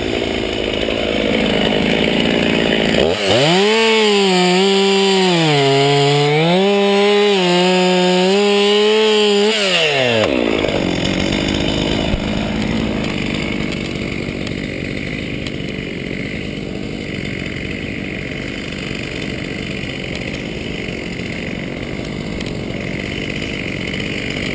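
Two-stroke chainsaw running at high revs for about seven seconds, its pitch dipping and recovering every couple of seconds, then falling away; a rough, steady engine noise carries on afterward.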